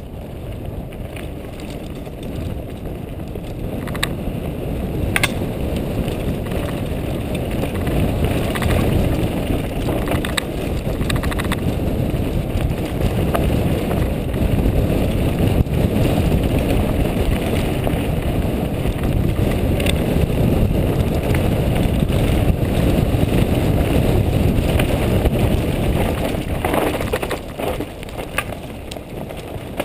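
Mountain bike riding down a rocky dirt trail: a steady rumble of tyres over loose stones and wind on the microphone, with sharp knocks and rattles as the bike hits bumps. It grows louder over the first several seconds as speed builds and eases off briefly near the end.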